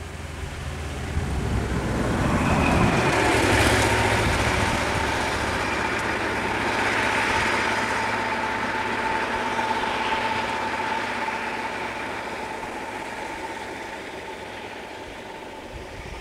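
A motor vehicle's engine runs low at first, then the rush of a road vehicle swells loud about three seconds in and fades slowly, with a steady whine.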